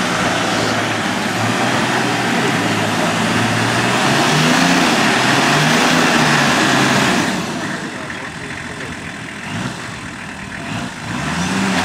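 Nissan Patrol 4x4's engine revving unevenly as it crawls through deep mud, its pitch stepping up and down under a loud rush of noise. The revs ease off about seven seconds in and climb again near the end.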